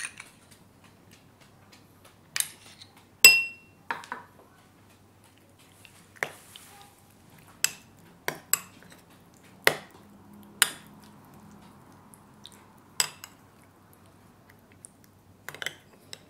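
Metal teaspoon clinking and tapping against small glass and ceramic bowls while mixing canned tuna with mayonnaise: about a dozen separate clinks, the loudest about three seconds in with a brief ring.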